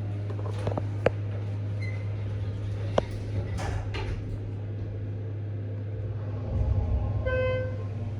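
Schindler elevator in motion: a steady low hum with a few clicks, then a short electronic chime about seven seconds in.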